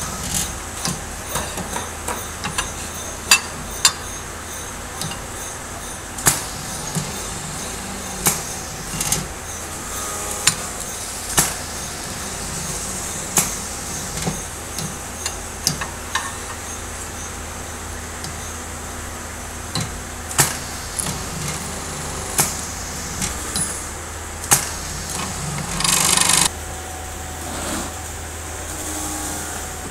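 Hammer-type riveting machine setting rivets in metal louver blade strips: sharp metallic knocks, irregular and about one or two seconds apart, over the machine's steady motor hum. Near the end there is a louder half-second burst of noise.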